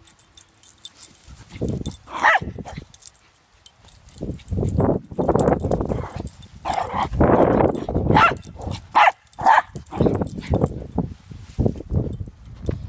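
Shih Tzu puppy barking in play: short yappy barks, one about two seconds in and a quick run of several more later, over uneven low rumbling noise.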